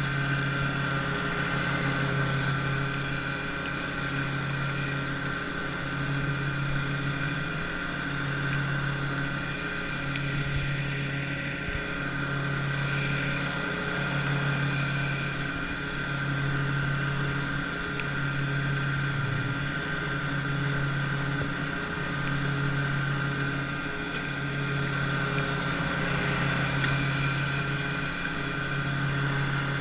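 Lawn mower engine running steadily under load, with the sound swelling and easing a little every few seconds.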